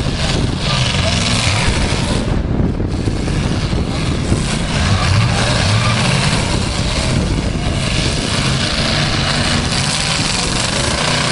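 Demolition derby cars' unmuffled engines running and revving hard as the cars move around the arena.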